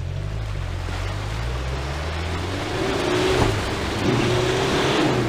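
Toyota Hilux pickup's engine revving under load as it climbs a steep, muddy bank, with the rushing noise of its tyres churning through mud. The engine note rises and is loudest about three to five seconds in.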